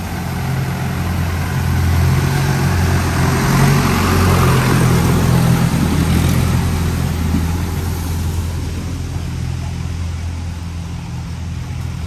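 Longtail boat's engine running as the boat speeds past, getting louder as it passes below about four seconds in, then fading as it pulls away.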